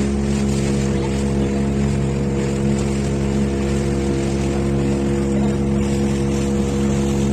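Speedboat engine running steadily at an even pitch while the boat is under way, with a rush of wind and water over it.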